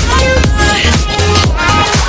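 Background electronic dance music with a steady kick drum, about two beats a second, under synth lines.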